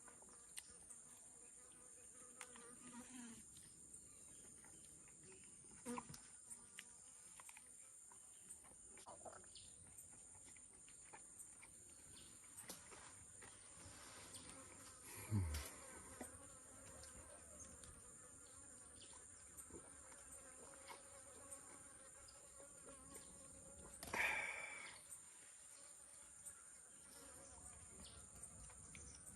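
Faint, steady high-pitched insect chorus, crickets or cicadas, in tropical forest. Two brief louder sounds break in, one about halfway through that falls in pitch and another near the end.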